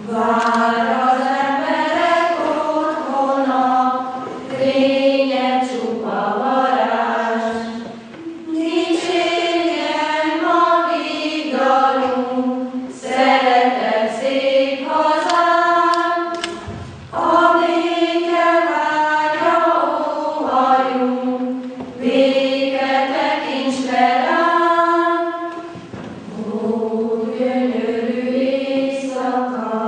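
Choir of girls and young women singing, in sung phrases of about four to five seconds with brief breaks between them.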